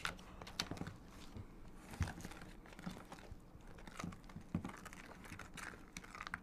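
Faint irregular scraping and light knocks of a spoon mixing stiff cookie dough in a plastic tub, with small clicks from handling a plastic measuring spoon and a vanilla extract bottle.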